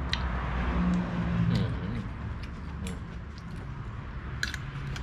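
Metal spoon and fork clinking a few times against a bowl, the sharpest clicks about four and a half seconds in, over a steady low hum.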